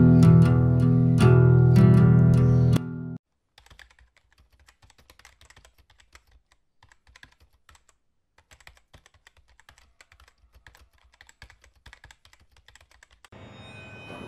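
Guitar music that cuts off about three seconds in, followed by about ten seconds of faint, rapid key clicks: a keyboard-typing sound effect. A swell of noise starts just before the end.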